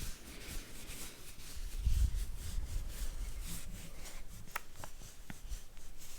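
Soft rubbing and scratching sounds, loudest about two seconds in, with a few faint clicks later on.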